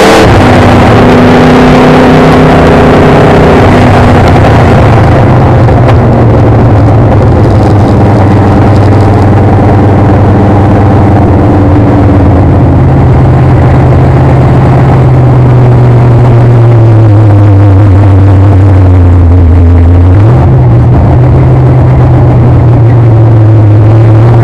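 Street stock race car's engine heard from inside the cockpit, running loud and fairly steady. Its pitch eases down from about two-thirds of the way in and picks up again briefly a few seconds later.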